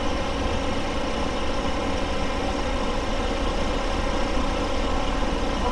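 A steady, unbroken mechanical drone with a low rumble, like an engine idling, holding level throughout.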